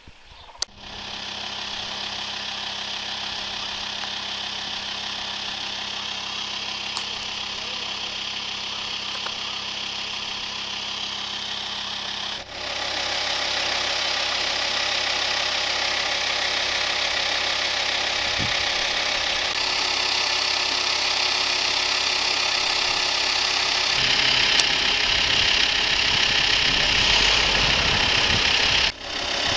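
Volkswagen Transporter ambulance's engine idling steadily, heard close up at the front of the van. It gets louder in two sudden steps, about halfway through and again near the end.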